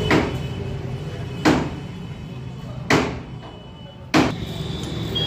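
Four sharp knocks, roughly a second and a half apart, over a steady low hum.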